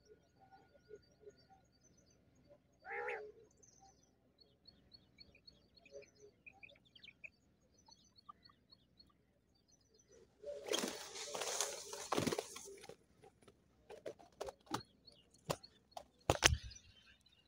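Faint chirping of small birds with one louder call about three seconds in. About ten seconds in, a loud burst of wing flapping and rustling lasting a few seconds as a quail flutters in a fine net, then a few sharp clicks and rustles.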